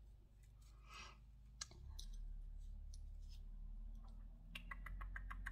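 Faint scattered clicks and small handling noises, with a quick run of clicks in the last second, over a low steady hum.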